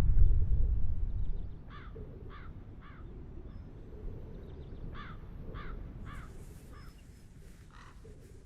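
A deep rumble dies away over the first second and a half. Then crows caw, short harsh calls in two runs, three and then four.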